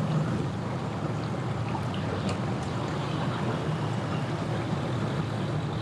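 Boat motor running steadily, with water churning and splashing.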